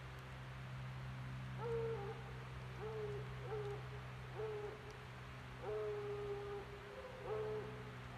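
Barred owl hooting: six hoots with upward-bending starts, the fifth drawn out longer, in the rhythm of its 'who-cooks-for-you' call. A steady low hum runs underneath.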